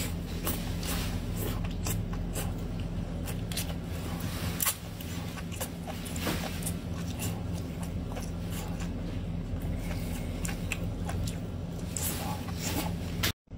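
Close-up mouth sounds of eating a marinated octopus: wet sucking, smacking and chewing on the tentacles, heard as irregular clicks and smacks over a steady low hum. The sound cuts out briefly near the end.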